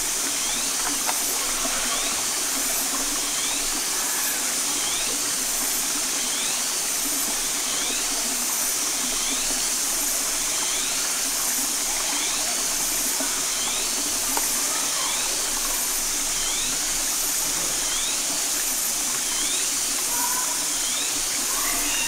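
Steady hiss of a shallow stream running over rocks, with faint short chirps repeating about once a second.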